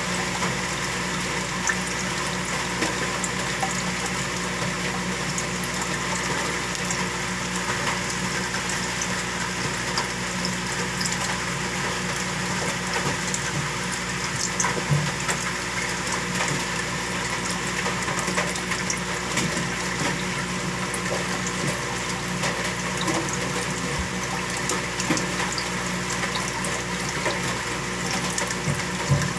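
Saltwater aquarium's water pump running steadily with a constant hum, water bubbling and moving at the surface, and an occasional faint click.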